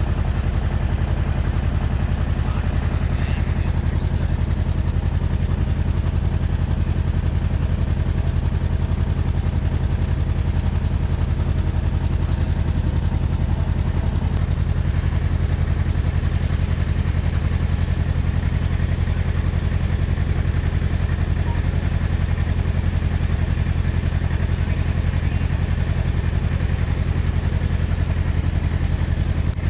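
Motorboat engine running steadily at cruising speed, with water rushing and splashing along the hull.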